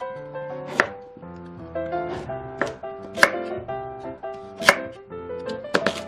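Chef's knife chopping peeled sweet potato into chunks on a wooden cutting board, each cut ending in a sharp knock of the blade on the board, several times at uneven intervals.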